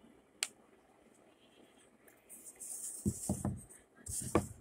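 Handling sounds of model boxcar parts being glued and fitted: a sharp click, then rustling and scraping with a few soft knocks, and another short rustle with a knock near the end.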